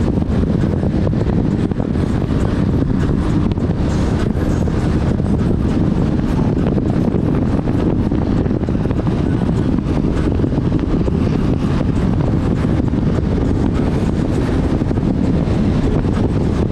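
28-foot Nordic Heat V-hull powerboat running at high cruising speed: a loud, steady, deep drone of engine and hull on the water, mixed with wind rushing over the microphone.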